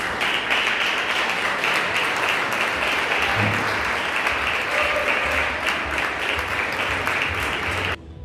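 Audience applauding, many hands clapping at once; the applause breaks off suddenly near the end.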